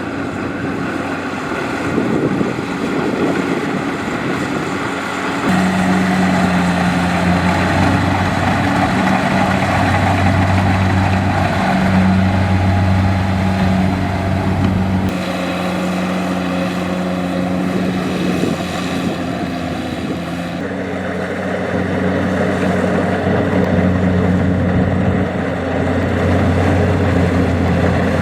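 Kubota DC-70 rice combine harvester running steadily while harvesting, its diesel engine and threshing machinery giving a loud, constant hum whose pitch steps a few times.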